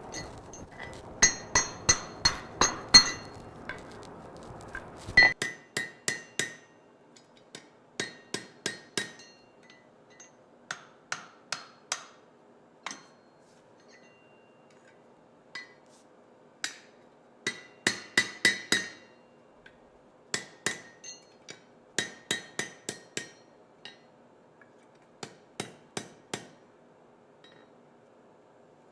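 Blacksmith's hammer striking hot steel stock on an anvil in short bursts of quick, ringing blows, drawing out the fishtail end of a leaf hook. A rushing noise lies under the first few seconds and stops about five seconds in.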